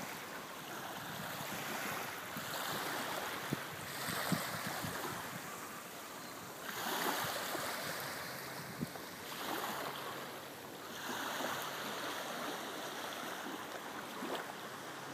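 Small waves washing onto a beach, the hiss of the wash swelling and falling back every two to three seconds.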